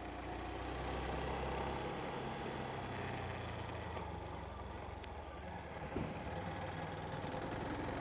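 Motorcycle running steadily along a street: a low engine hum under an even wash of road and traffic noise, with a light thump about six seconds in.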